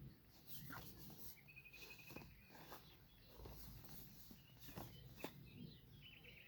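Faint, scattered clicks and light rustles of a watch box and its packaging being handled, with a short high trill about a second and a half in.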